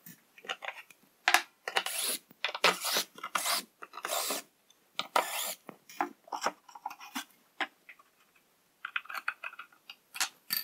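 A string of short scrapes, rubs and knocks as a homemade vertical strip sander is taken apart and its table top is lifted off.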